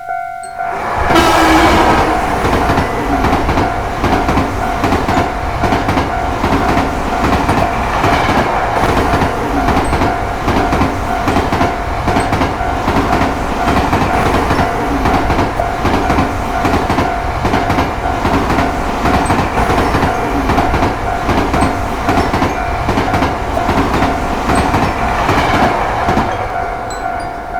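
A loud, sustained mechanical rumble with a rapid, rhythmic clatter and a few steady high tones over it.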